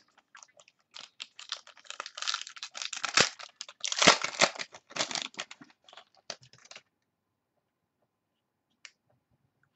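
Foil wrapper of a trading-card pack being torn open and crinkled by hand: a dense run of crackles and rustles for about six seconds that then stops, with one faint tick near the end.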